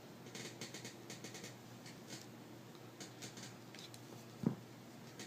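Small metal parts of a Ruger 22/45 pistol being handled and pushed into place: faint scratching and light ticks, with one sharper click about four and a half seconds in.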